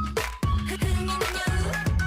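Upbeat electronic pop music with a steady kick-drum beat, a little over two beats a second, and a short stepping synth melody over it.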